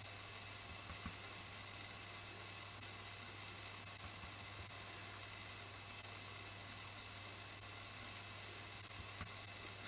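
Steady, unchanging hiss with a low hum beneath it, and a couple of faint ticks; no clear event stands out.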